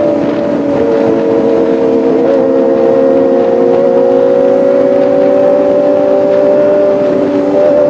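Kawasaki ZX-25R four-cylinder engine and exhaust running at steady revs, a continuous engine note that holds nearly one pitch, with a slight dip about two seconds in.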